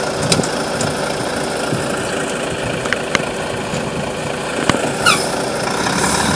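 Volvo FH lorry's diesel engine idling steadily while the truck stands, with a few sharp clicks and one short high squeak about five seconds in.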